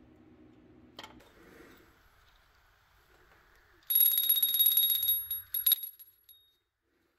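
Small brass bell on a restored Structo Diamond T fire-truck toy, shaken so it rings rapidly with a steady high ring for nearly two seconds, then struck a couple more times and left to ring out. A light click about a second in.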